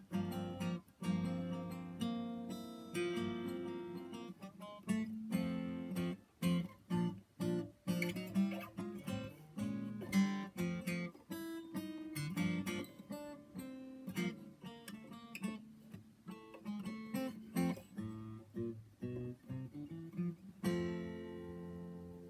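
Collings OM1A Cutaway steel-string acoustic guitar played solo, with plucked melody notes and strummed chords, ending on a final chord that rings out near the end.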